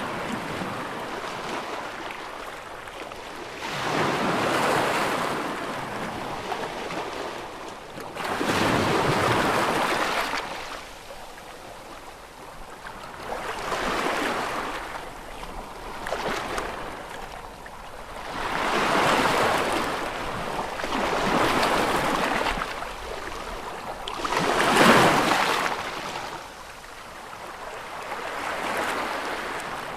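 Ocean waves breaking close up: surf that swells and falls back about seven times, roughly every four to five seconds, with the loudest break a few seconds before the end.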